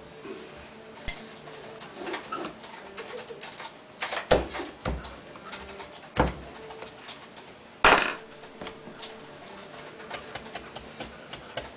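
Hand-held wood carving gouge cutting into a wooden board: short scraping cuts, with a few sharp knocks, the loudest about four, six and eight seconds in.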